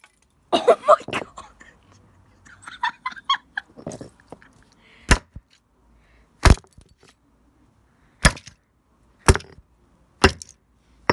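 A concrete paving block repeatedly slammed down on a toy train coach on a concrete pavement: a series of about six sharp hits, roughly a second apart, in the second half, smashing the toy into pieces.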